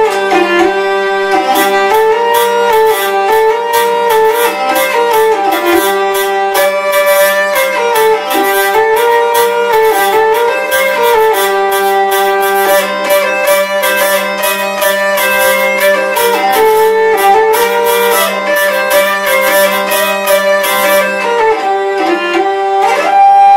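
Hurdy-gurdy playing a melody over a steady drone, the wheel sounding the melody string in short rising and falling phrases. A rhythmic buzz comes several times a second from the trompette string's buzzing bridge as the crank is turned.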